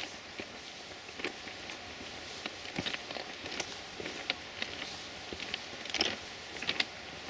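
Footsteps crunching on railway track ballast: irregular short crunches and clicks of stones underfoot over a steady hiss, busiest about six seconds in.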